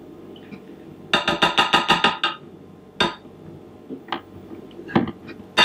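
Metal spoon scraping and tapping against a plastic bowl and a china plate while serving a cream sauce: a quick rattling run of scrapes about a second in, then a few single clicks.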